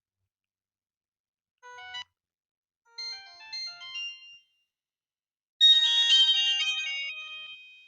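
Samsung GT-E1200I mobile phone playing its short electronic alert tones one after another through its small speaker. A brief chime comes about one and a half seconds in, a short melodic phrase follows around three to four seconds, and a louder, fuller chiming phrase starts at about five and a half seconds and fades out.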